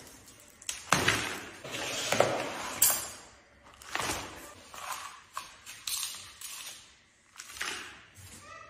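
Broom sweeping and a plastic dustpan scraping across a ceramic tile floor, with gypsum board and plaster debris tipped and rattling into a plastic bucket. The scrapes and rattles come in a string of strokes about a second apart, with a brief squeak near the end.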